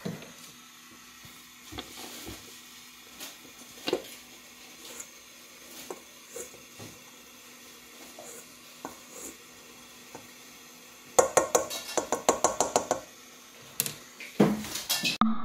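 Light knocks and clatter of chocolate pieces and a utensil in a stainless steel mixing bowl, with a quick run of about a dozen sharp knocks about two-thirds of the way through and a few more near the end.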